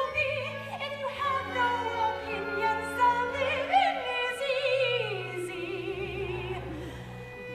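Solo singer in an operatic style, holding notes with vibrato, over a steady instrumental accompaniment in a live stage musical number.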